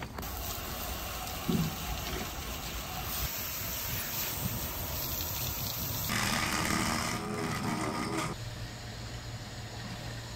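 Water spraying and splashing over a jet ski's hull, a steady hiss that changes abruptly about six seconds in. A steady low hum comes in near the end.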